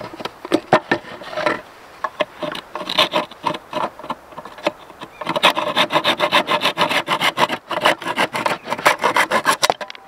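Hand saw cutting through the wooden perch stick of a pine birdhouse in short back-and-forth strokes, uneven at first and then quick and steady from about halfway, stopping just before the end.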